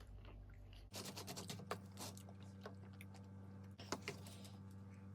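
Quiet eating sounds: scattered small crunches and clicks of chewing, over a faint steady hum.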